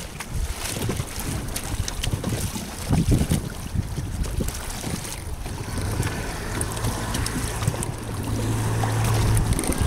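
Wind buffeting the microphone over splashing water from a boat on the water, with a steady low hum joining about two-thirds of the way through.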